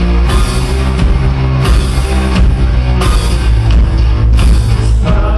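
Live rock band playing loudly: distorted electric guitar, bass and a drum kit, with a cymbal crash about every second and a half.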